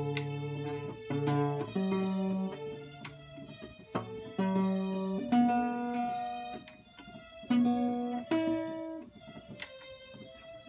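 Nylon-string classical guitar and a keyboard sounding single notes one after another, each ringing out for up to about a second with short gaps between, the notes stepping up in pitch. The guitar is being tuned against reference notes from the keyboard.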